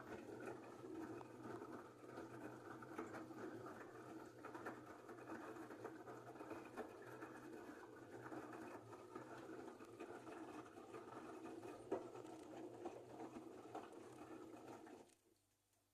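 LG front-loading washing machine in its wash stage, drum turning the laundry through water with a low motor hum; it stops abruptly shortly before the end.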